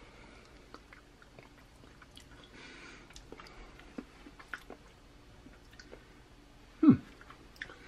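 Faint lip-smacking and small mouth clicks of a person tasting pan gravy off a spoon, with one brief louder sound falling in pitch near the end.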